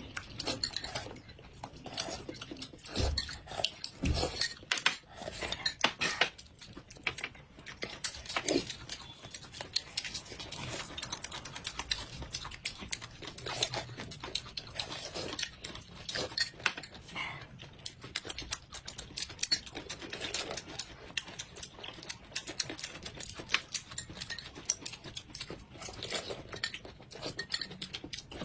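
Close-miked table and eating sounds: spoons clinking against glass cups of corn soup and chopsticks tapping on dishes, in a dense, irregular run of small clicks and knocks, along with sipping and chewing.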